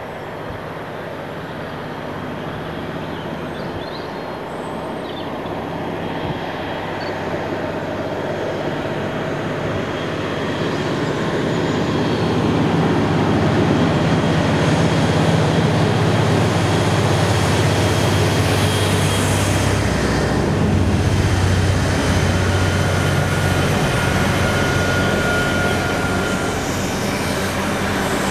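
Diesel locomotive hauling a passenger train, approaching and passing: a steady low engine drone grows louder over the first half and stays loud as the locomotive goes by, then the coaches run past.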